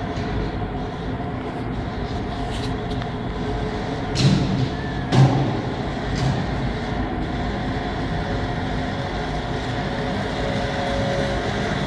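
Automated guided transport cart running along its floor guide track in a service tunnel: a steady electric-drive hum and rumble, with two short knocks about four and five seconds in.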